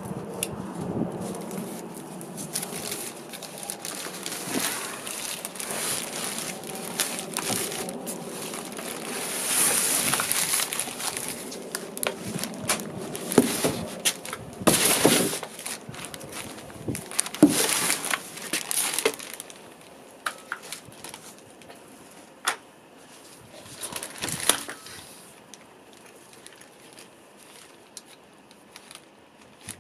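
Cardboard box and plastic wrapping crackling and rustling as an electric scooter is unpacked, with many sharp knocks and clicks. After about twenty seconds the handling dies down to occasional clicks.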